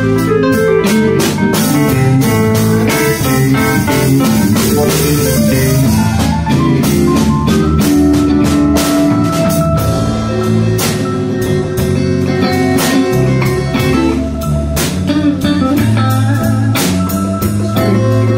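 Live blues band playing: electric guitar and keyboard over a drum kit keeping a steady beat.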